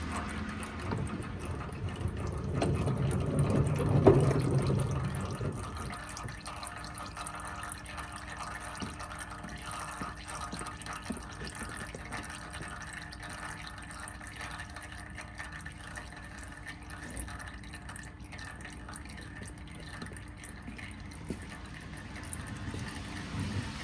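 Old gear oil running out of a manual transmission's drain hole into a catch pan, louder for the first five seconds or so, with a sharp knock around four seconds in, then settling to a steady quieter trickle.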